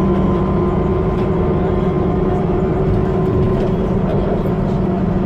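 Iveco Urbanway city bus's Cursor 9 six-cylinder diesel engine running with a steady, unchanging note.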